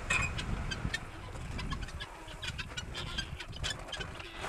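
Chickens clucking, with many light scattered ticks and taps over a steady low rumble.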